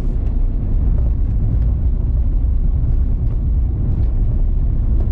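Steady low rumble of a vehicle cruising on a highway, heard from inside the cabin: engine, tyre and road noise.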